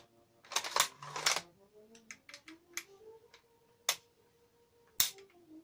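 Metal clicks and rasps from the bolt and safety of a deactivated Gewehr 98 rifle being worked by hand. There are two clattering slides in the first second and a half, then small scattered clicks, and two sharp clicks near the end.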